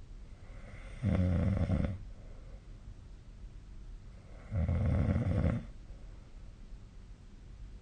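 Snoring in sleep: two long snores, each about a second long and about three and a half seconds apart.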